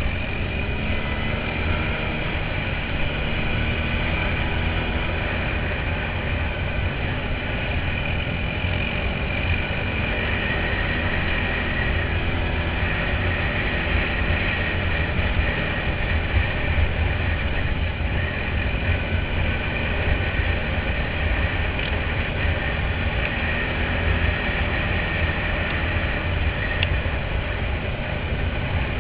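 Quad bike (ATV) engine running steadily at speed over a rough dirt track, with a heavy low rumble throughout and a faint steady high whine.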